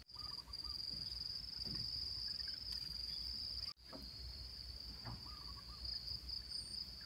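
Steady high-pitched drone of insects, with a faint short chirping call twice.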